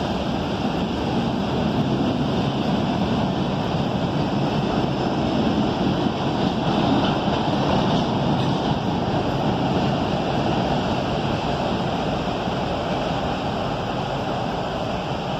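Freight train's boxcars rolling past at a distance, a steady rumble of wheels on rail.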